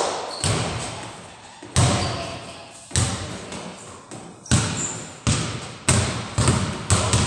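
Basketball bouncing on a hard floor: sharp bounces every second or so, coming quicker near the end, each trailing off in a long echo off the bare walls of a large hall.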